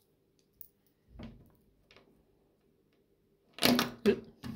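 Metal bike-chain bracelet being handled at the wrist: a soft thump about a second in, then a quick burst of sharp clicks and clatter from the chain links and clasp near the end.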